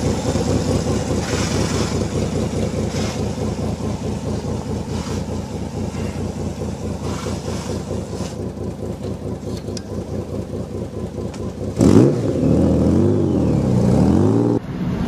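Homemade motorcycle engine idling with a steady, even pulse. About 12 s in the throttle is opened and the engine revs up and down several times as the bike moves off. Near the end the sound cuts abruptly to a different, steadier engine.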